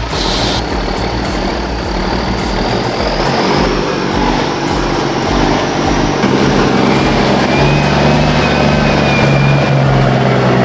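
Heavy logging truck's diesel engine working under load, a steady low drone that grows a little stronger through the second half.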